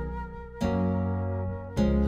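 Live band music: sustained chords over a steady bass, with a new chord struck about half a second in and another just before the end.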